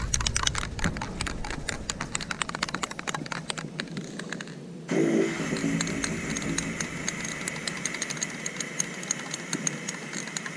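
Sped-up sound of aerosol spray painting: a fast run of clicks and hiss from the spray can. About five seconds in it changes suddenly to a steadier hiss with faster, even ticking.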